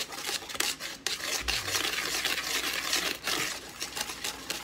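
A whisk stirring dry flour and sugar in a plastic mixing bowl: a quick, continuous run of scratchy scraping strokes as the dry ingredients are blended.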